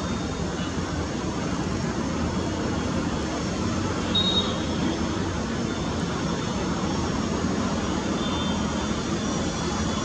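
A steady rushing background roar with no breaks, with a couple of faint, brief high chirps about four and eight seconds in.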